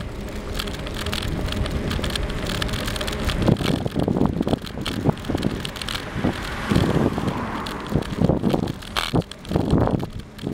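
Bicycle rolling along a paved road with wind buffeting the microphone: a steady hum at first, then irregular low gusts from about three and a half seconds in.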